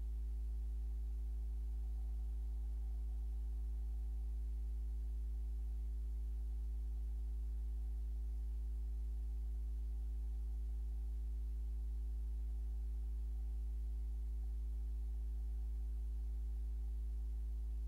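Steady low electrical hum with a few fainter higher overtones, unchanging throughout.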